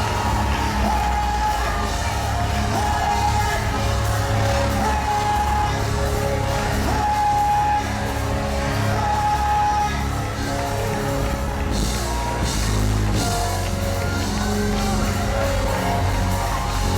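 Live gospel worship music: a band with heavy bass under singing voices holding long notes.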